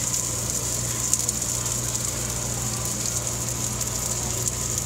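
A metal spatula scraping and clicking lightly on a hot flat-top griddle, over a steady low hum and a constant high hiss.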